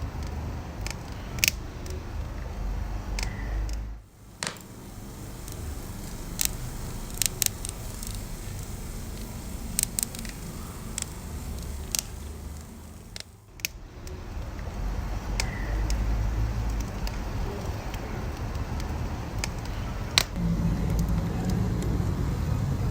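Wood fire burning with a steady low rumble of flame, and irregular sharp crackles and pops from the burning wood. The rumble dips briefly twice.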